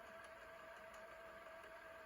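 GE VG2051 VCR rewinding a VHS tape: a faint, steady mechanical whine with a few light ticks.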